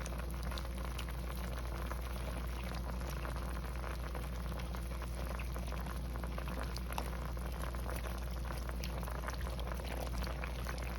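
Pot of potatoes, cabbage and beef boiling steadily, a continuous fine crackle of bubbling, over a steady low hum.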